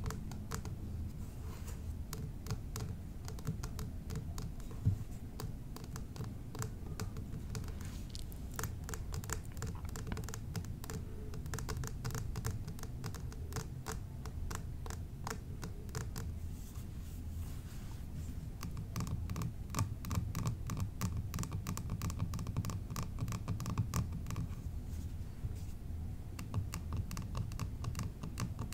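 Rapid, dense tapping and scratching on small mini-bar bottles, over a steady low background hum, with faint ringing notes coming in during the last third.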